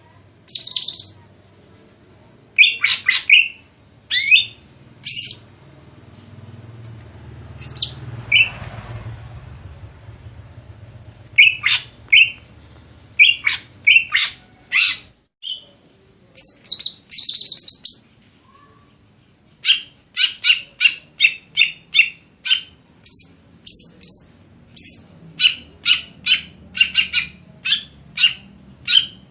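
Caged cucak ijo (green leafbird) singing: scattered short, sharp chirps and whistled notes, then a quick string of repeated chirps through the last third.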